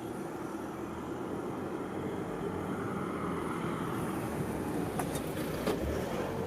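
Road vehicle passing over steady street noise, swelling slightly through the middle, with a few light clicks near the end.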